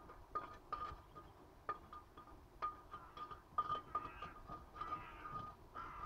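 Short ringing metallic clinks, several in a row with scraping between, as a steel tool knocks against the crucible of molten iron while slag is worked off.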